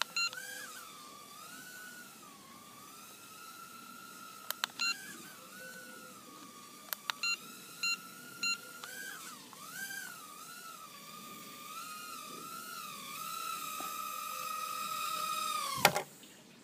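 Cheerson CX-10 nano quadcopter's tiny motors whining, the pitch wavering up and down as the throttle changes and growing louder as it comes in, with a few short electronic beeps in the first half. Just before the end the whine cuts off suddenly with a knock as the drone sets down on a wooden table.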